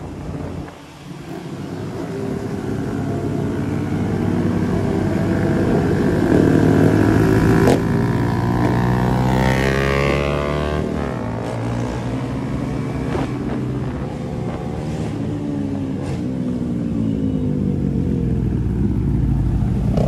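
KTM Duke 250 single-cylinder motorcycle engine running under way, its note climbing over the first several seconds as it speeds up and then holding. Around the middle a second engine note sweeps across it, and there is a sharp click a little before.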